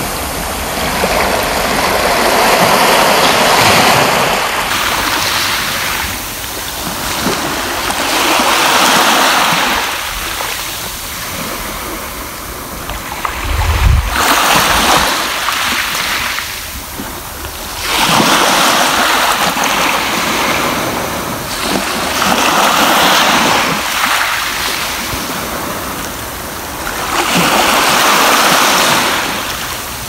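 Small sea waves breaking and washing up a sand-and-pebble beach, the surf swelling and falling back about every five seconds. A brief low thump sounds about halfway through.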